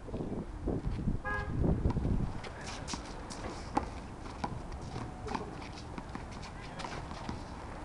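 Handball rally: sharp slaps of the rubber ball off hands and the concrete wall, and sneakers scuffing on the asphalt. A brief horn toot sounds a little over a second in.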